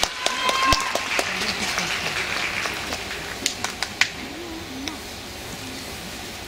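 Audience applause in an ice rink dying away over the first few seconds, with a few last scattered claps about four seconds in, then a quieter crowd murmur with some faint voices.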